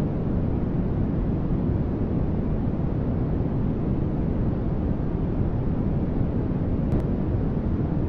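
Continuous generated white-noise static for sleep masking: a steady, unchanging rush with most of its weight in the low end, softer higher up.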